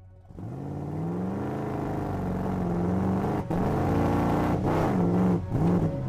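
A car engine revving and accelerating: its pitch climbs from about half a second in, wavers up and down, and drops briefly twice. Background music runs underneath.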